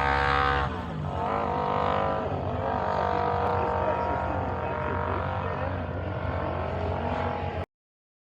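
Classic racing vehicle's engine running at high revs. Its pitch drops sharply just before a second in, then climbs again and holds a steady, loud note. The sound cuts off suddenly near the end.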